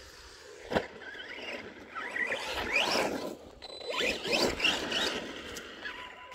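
Arrma Senton RC truck's electric motor whining up in pitch in two bursts of throttle, with a sharp knock about a second in.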